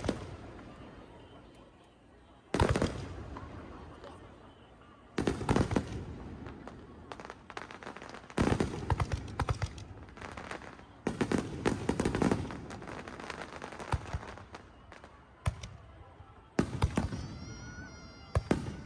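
Aerial fireworks shells bursting: a loud boom every two to three seconds, each trailing off into crackling and rumbling, with clusters of rapid crackles in between.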